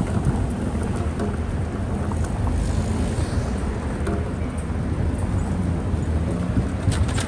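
City street background noise: a steady low rumble of traffic, with wind buffeting the microphone.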